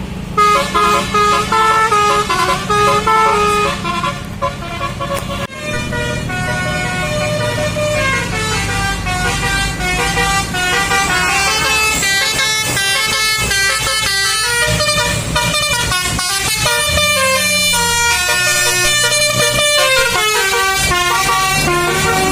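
A bus's 'telolet basuri' multi-tone air horn playing a melody note by note, over a steady low engine hum.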